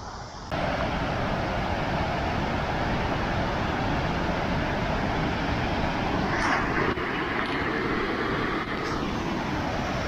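Steady rushing of a wide waterfall, white water pouring over broad rock ledges, cutting in sharply about half a second in.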